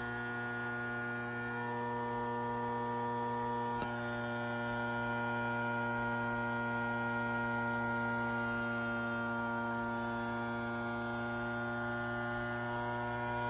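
Homemade model Hurricane siren running with its blower: a steady hum with several overtones held at one pitch, swelling a little near the end.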